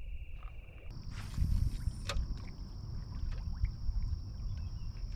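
Kayak moving through a marsh channel: low wind and water rumble, with a thin, steady high-pitched insect trill that jumps higher about a second in. A single sharp knock comes near two seconds in.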